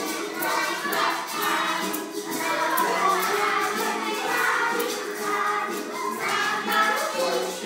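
A children's dance song played over loudspeakers, with a group of voices singing over a steady beat.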